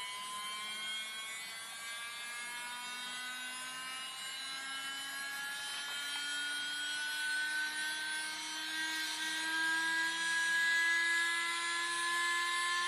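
Small 3.7 volt coreless motor in a toy water-jet boat running with a steady whine. Its pitch rises slowly and evenly as the 10 farad supercapacitor wired across it charges from a battery pack, the motor speeding up with the voltage.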